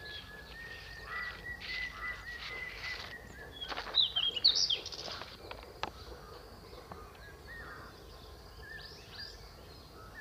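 Outdoor ambience with birds chirping: a cluster of loud, sharp calls about four seconds in and fainter calls near the end, over a thin, steady high tone in the first few seconds.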